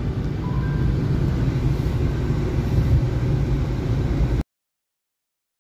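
Car driving through a sandstorm, heard from inside the cabin: a steady low rumble of road and wind noise that cuts off suddenly to silence about three-quarters of the way in.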